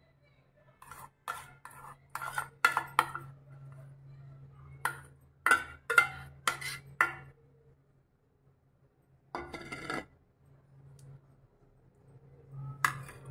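Metal spoon clinking and scraping against a stainless steel bowl while scooping out a creamy filling: two quick runs of sharp, ringing clinks, then a longer scrape, and one more clink near the end.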